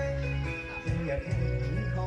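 Music with long held bass notes under sustained and gliding melody lines.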